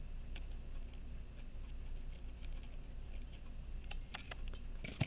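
Faint, scattered little clicks and taps of small metal tools handling a pocket watch movement. They bunch together about four seconds in, and a sharper tap comes just before the end, over a steady low hum.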